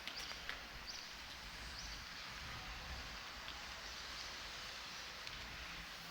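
Outdoor street ambience: a steady hum of background noise with a few sharp clicks about half a second in and short high chirps about once a second in the first two seconds.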